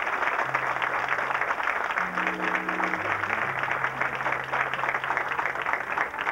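A crowd of guests applauding steadily. A few low, held musical notes come in underneath from about half a second in.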